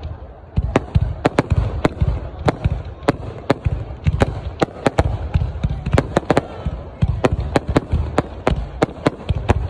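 Fireworks going off in a rapid, irregular series of sharp bangs, about three or four a second, over a continuous low rumble.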